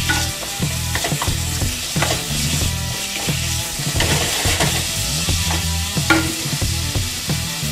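Chunks of chicken sizzling in hot oil in a pan while a spatula stirs them, scraping and knocking against the pan every second or so.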